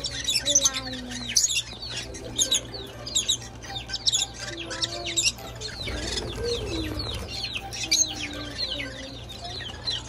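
Pet lovebirds and cockatiels chirping nonstop: many rapid, overlapping short high chirps, with a few lower, longer notes underneath.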